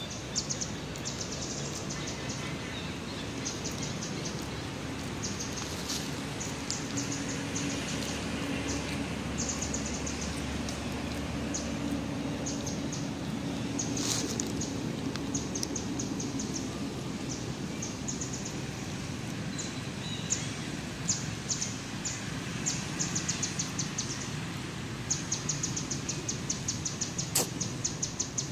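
Outdoor ambience: repeated short bursts of rapid, high-pitched chirping over a steady background hiss, with a faint low hum through the middle.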